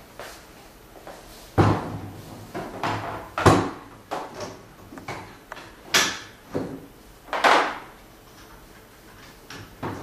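Aluminium extrusion rail and carriage parts of a CNC router kit being handled on a table: two sharp clunks as pieces are set down, then sliding scrapes of metal over the tabletop, with small clicks between.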